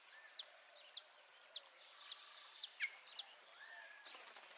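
Birds calling faintly: sharp, very high chip notes repeated evenly about twice a second, with a few lower down-slurred notes and a short high whistle mixed in.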